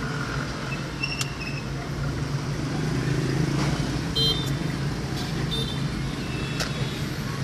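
Car driving at low speed, heard from inside the cabin: steady engine and road hum. Short high horn toots from passing traffic and a few sharp clicks come in about a second in and again several times from about four seconds in.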